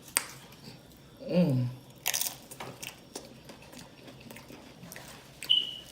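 Crunching and chewing of Flamin' Hot Doritos nachos up close: sharp bites and crunches, the loudest about two seconds in, with wet mouth clicks and a short hummed 'mmm' about a second and a half in.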